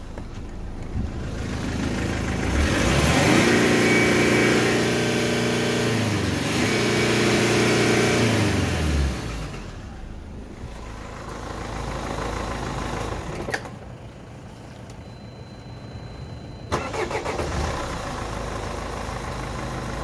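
Mercedes OM646 2.2 CDI four-cylinder turbodiesel running, revved up and back down twice in the first half, then settling to idle. Later there are a couple of sharp clicks and a short steady beep.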